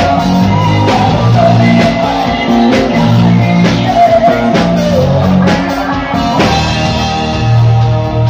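Live rock band playing: a man singing into a microphone over electric guitar, low notes and drums.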